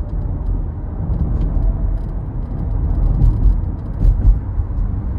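Toyota Prius Prime on the move, with a steady low road rumble and light, irregular rattling clicks scattered through it. This is the rattle that a dealer repair has not cured.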